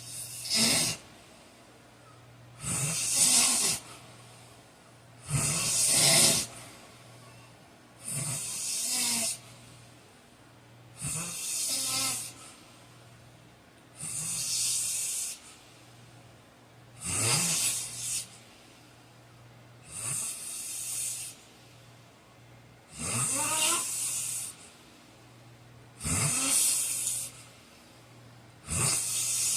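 A man snoring in his sleep: a snore about every three seconds, each lasting about a second, in an even rhythm. A faint steady low hum runs underneath.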